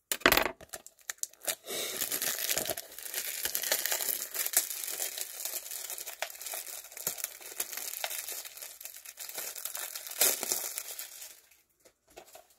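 Clear plastic shrink wrap being torn and peeled off a DVD case: a sharp knock at the start, then a long run of crinkling and crackling with small clicks that stops about eleven seconds in.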